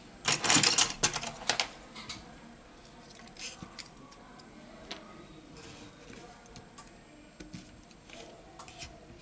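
Small metal parts of an opened Xiaomi Mi A2 smartphone being handled: a short loud burst of scraping noise in the first second, then scattered light clicks and clinks as a metal bracket is lifted off the board and set down.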